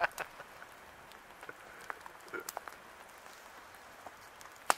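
Steady light rain with scattered drops tapping close by, and one sharp tap near the end.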